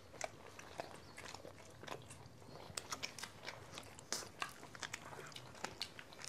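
People chewing pizza close to clip-on microphones: faint, irregular mouth clicks and smacks, several a second.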